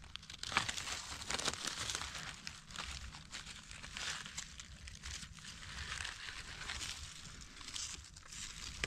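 Dry fallen leaves rustling and crackling in irregular small crunches as gloved hands work through the leaf litter, cutting mushrooms from the forest floor.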